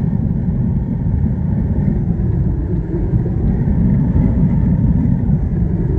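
Steady low rumble of road, tyre and wind noise inside a car cabin at highway speed, with a side window open.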